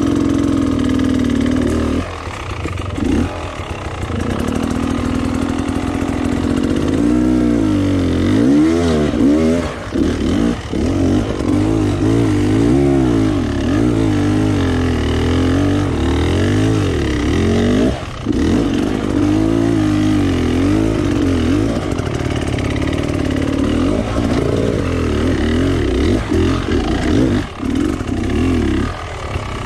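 Enduro dirt bike engine under load on a rough trail, revs rising and falling constantly as the throttle is worked, with brief drops where the throttle is shut off.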